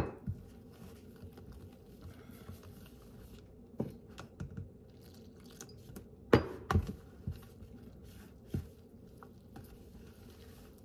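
A metal spoon stirring dry flour-and-cornstarch batter mix in a plastic bowl, with scattered clicks and knocks; the loudest comes about six seconds in.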